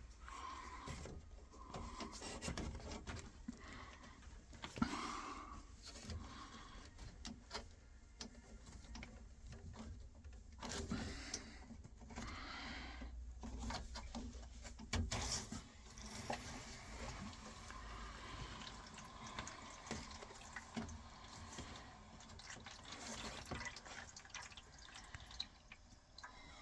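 Water being let out of a Worcester combi boiler's heating circuit to lower its pressure: an irregular trickling and splashing of water into a container, with small drips and clicks throughout.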